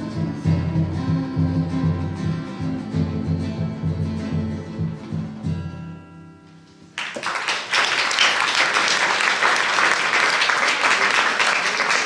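Live acoustic song with a large standing drum, its last notes dying away about six seconds in; a second later the audience starts applauding, and the clapping runs on.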